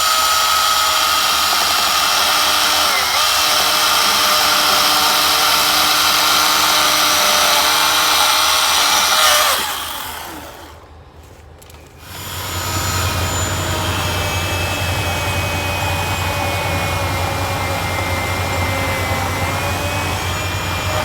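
Milwaukee battery chainsaw running with a steady electric whine, winding down and stopping about nine seconds in. After a short lull, a different steady machine sound with a deep hum starts and runs on.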